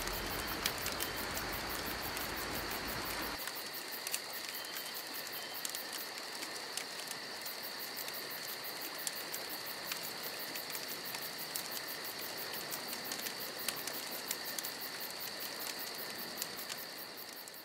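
Night chorus of crickets: a steady, high-pitched pulsing trill with a second, lower trill beneath it. A low rumble under it cuts off about three seconds in.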